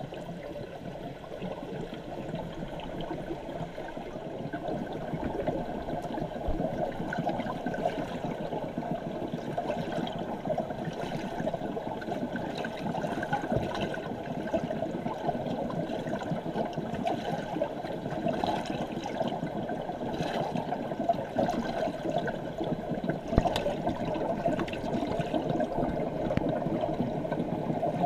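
Steady low rush of moving water in a trout tank, heard with the microphone underwater, with a few faint clicks.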